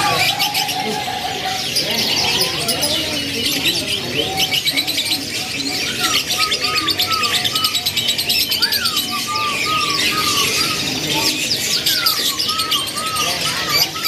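A dense, continuous chorus of caged canaries chirping and twittering together, with short repeated lower calls mixed in, more of them in the second half.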